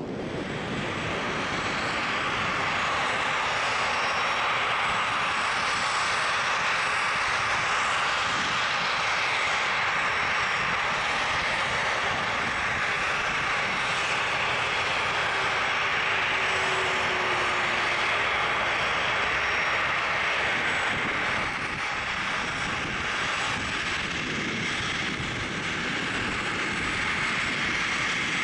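Jet engines of taxiing airliners, a McDonnell Douglas MD-11F freighter and a rear-engined regional jet close by, running at taxi power: a steady rushing jet noise that dips slightly about three-quarters of the way through.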